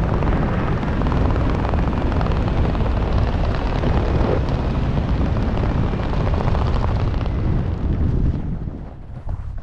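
Wind rushing over a helmet-mounted camera's microphone as a jumper flies under a parachute canopy, a loud steady rumble that dies away about eight seconds in as the canopy slows and touches down over the grass.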